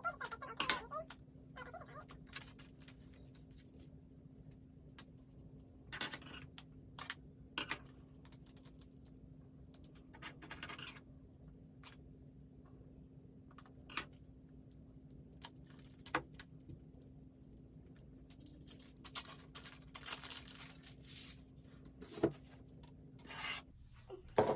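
Plastic toy packaging being handled and opened: scattered clicks and short crinkling rustles, with a longer stretch of rustling or tearing near the end. A steady low hum runs underneath.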